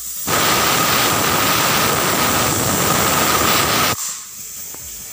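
Aluminium pressure cooker whistling: steam bursts from the vent with a loud hiss and a steady whistle tone for about three and a half seconds, then cuts off sharply. This is the third whistle, the sign that the potatoes and onions inside are done.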